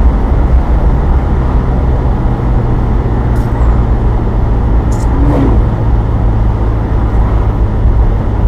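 Wind buffeting the microphone in an open-top Ferrari convertible driving at road speed: a loud, steady low rumble of wind and road noise.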